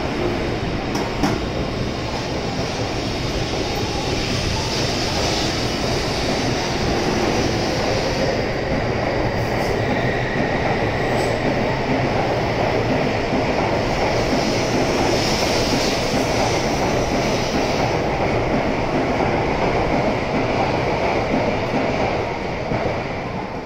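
A Tokaido Shinkansen N700-series trainset pulling out of the platform: a steady rumble of wheels and running gear with a hiss, slowly growing louder as it gathers speed. It falls away near the end as the last car passes.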